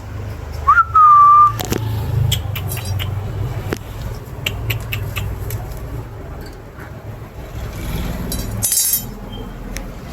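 Pet parrot giving one short whistle about a second in, rising and then held level, followed by scattered sharp clicks and a brief harsh rasp near the end, over a steady low hum.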